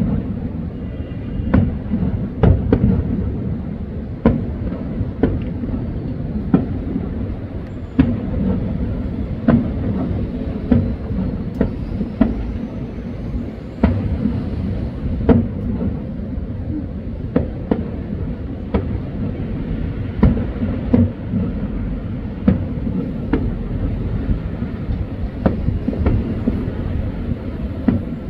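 Aerial fireworks shells bursting: a string of sharp bangs at irregular spacing, about one a second, over a continuous low rumble.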